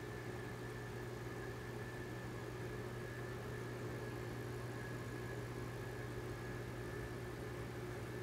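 Steady electric hum of aquarium equipment, an air pump or filter motor, with a thin high whine above it.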